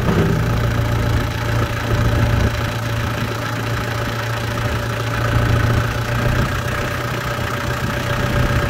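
New Holland Workmaster 45 compact tractor's diesel engine running steadily while the front loader's hydraulics lift the loader arms. A higher steady whine grows stronger about five seconds in.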